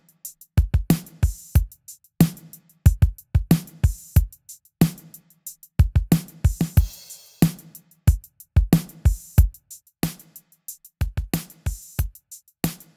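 Drum-kit loop playing back through a plugin EQ, with kick and snare hits in a steady groove. The kick is heavy in the low end, its lows being boosted with the EQ's low band.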